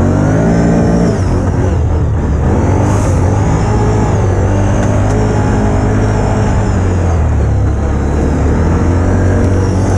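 ATV (quad bike) engine running under throttle while riding a rough dirt track. Its pitch rises as it accelerates in the first second, then rises and falls with the throttle.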